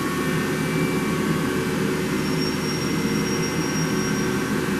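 CNC milling machine running steadily while machining an aluminium soft jaw. A thin high whine comes in about two seconds in and stops near the end.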